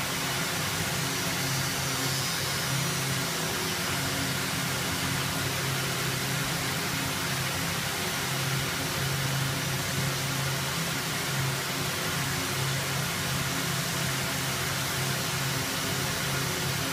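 LB-2000 two-ply yarn twisting machine running: a steady whirring hiss from its many spinning spindles, with a low steady hum underneath.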